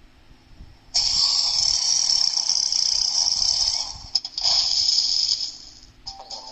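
A long, airy burp without a clear pitch, lasting about three seconds, followed by a click and a second, shorter burp.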